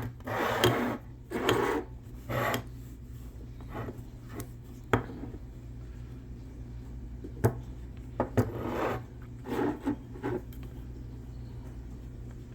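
Metal parts of a manual 4x4 locking hub being worked apart by hand: scraping and sliding sounds in the first few seconds, then several sharp clicks of metal on metal.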